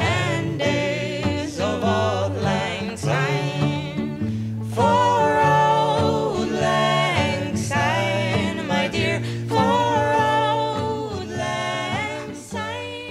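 A background song: a singing voice over instrumental accompaniment, fading out near the end.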